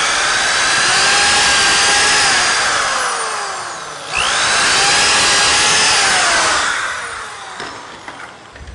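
Power drill boring pilot holes into a wooden board, its motor whine sliding in pitch as the bit loads and frees. It slows about four seconds in, spins up again for a second hole, and winds down near the end.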